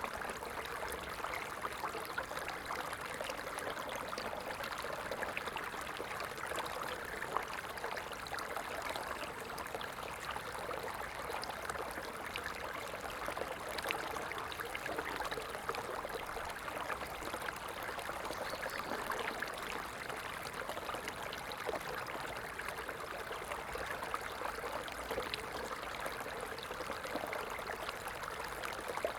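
Running water, a small stream trickling and splashing over stones in a steady, unbroken flow.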